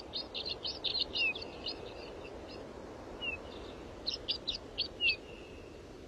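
Small songbird chirping: a quick run of short high notes in the first second and a half, a few falling notes, then another quick run about four to five seconds in, over a faint steady background hiss.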